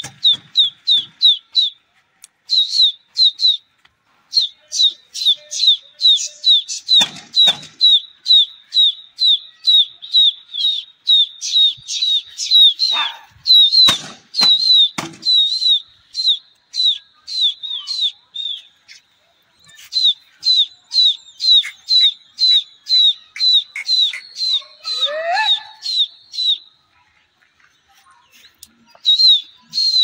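A bird chirping over and over, about three short, sharp, high calls a second, with a brief pause past the middle and a stop a few seconds before the end.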